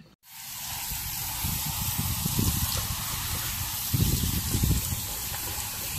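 Garden hose spray nozzle spraying water, a steady hiss that starts just after the beginning and cuts off abruptly at the end. Uneven low rumbling runs beneath it and is loudest about four seconds in.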